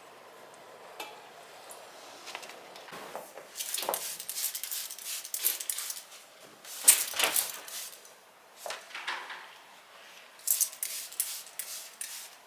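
Dishes and cutlery clinking and clattering in short bursts, about four seconds in, around seven seconds in (the loudest), and again from about ten to twelve seconds in.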